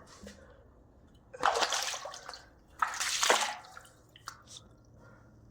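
Shallow creek water splashing twice, about a second apart, as someone crawls or wades through it inside a tunnel.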